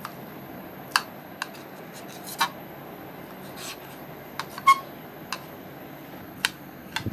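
A table knife clicking and scraping against a ceramic plate as it slices through a soft steamed egg loaf: about ten sharp, irregular clicks with a couple of short scrapes over a low steady hiss.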